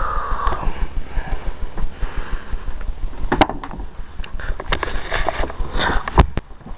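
Handling noise from a handheld camera being moved: a low rumble and rubbing against the microphone, with several sharp knocks and clicks from about three seconds in.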